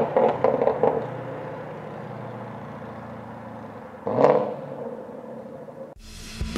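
Ford Mustang Bullitt's 5.0 V8 through an aftermarket X-pipe catback exhaust, pulling away with sharp crackles for about a second, then fading to a distant drone. About four seconds in there is a short rev that rises in pitch and dies away. Rock music cuts in near the end.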